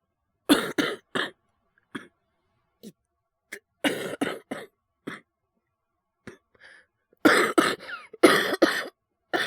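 A man coughing in several bouts of two or three coughs each, with some throat clearing: a nasty lingering cough from influenza A that comes on suddenly in choking fits.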